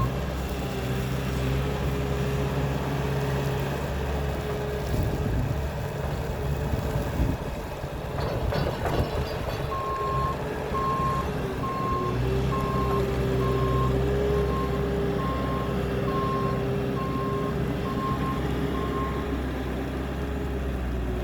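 A heavy truck's reversing alarm beeping about once a second over its steady engine rumble. The beeping is absent for the first half and resumes about ten seconds in, stopping a couple of seconds before the end.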